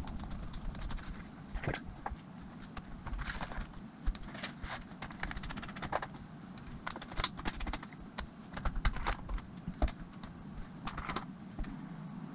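Irregular light clicks and taps of small tools and plastic laptop parts being handled while a Dell Latitude CPi laptop is taken apart.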